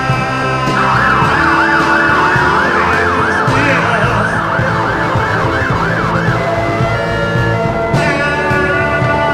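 A siren wailing over rock music, its pitch sweeping up and down about twice a second. It starts about a second in and stops about two-thirds of the way through, leaving the music playing on its own.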